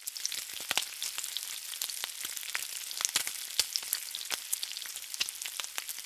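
Food frying in hot oil: a steady sizzle with scattered pops and crackles.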